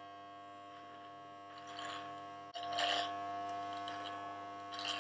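Electric hair clippers running with a steady buzz while trimming the hair at the side of the head, getting louder about halfway through.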